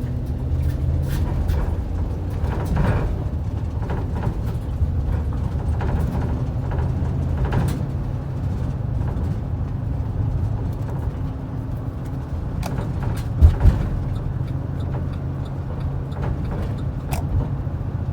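Engine and road noise of a vehicle being driven, a steady low drone. Two sharp thumps come close together about three-quarters of the way through.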